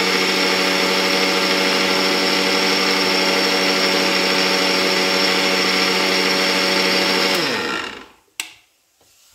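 Electric mixer grinder running steadily with its large stainless-steel jar, whipping curd smooth. The motor cuts off about seven seconds in and its whine winds down, followed by a single click.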